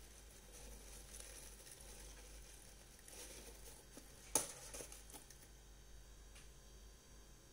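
Quiet hiss with faint rustling, then one sharp click about four seconds in, followed by a few softer ticks.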